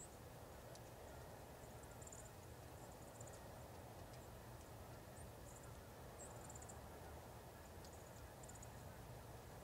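Near silence: a steady faint hiss, with brief, faint high chirps every second or two.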